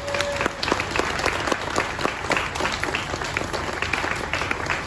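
Crowd applauding: many people clapping in a steady round of applause.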